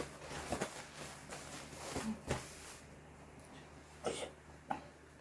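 Rustling and crinkling of a disposable absorbent pad being unfolded and spread on the floor. It goes quiet about three seconds in, then two short knocks.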